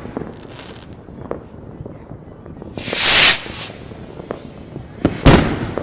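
New Year's Eve fireworks and firecrackers going off: scattered small pops, a loud hissing rush about halfway through, then two sharp bangs close together near the end.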